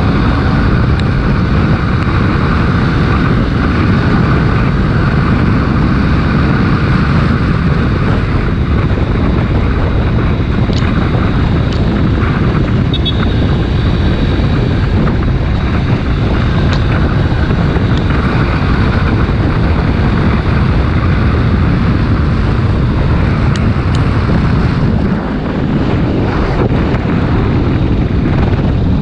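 Wind rushing over the GoPro microphone of a Kawasaki Ninja 250 RR Mono riding at speed, with the bike's single-cylinder engine running underneath; the sound stays loud and steady throughout.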